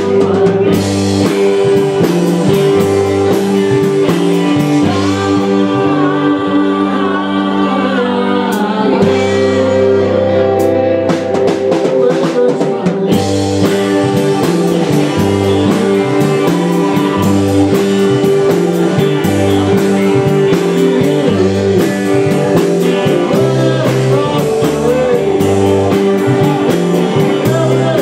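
Live rock band playing a song: a man singing into a microphone over electric guitars, bass and a drum kit.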